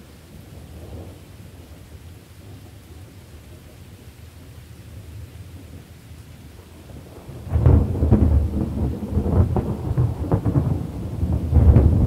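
Thunderstorm with rain: a quiet low rumble of thunder, then a little past halfway a loud thunderclap that rolls on with repeated cracks and swells again near the end.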